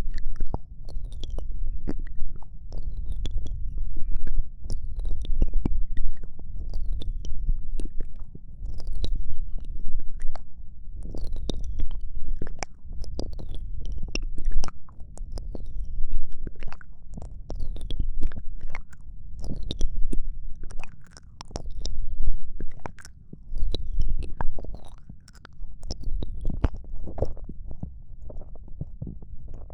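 ASMR mouth sounds close to the microphone: a continuous stream of soft wet clicks and smacks. Underneath runs a low rumble that swells and fades about every two seconds.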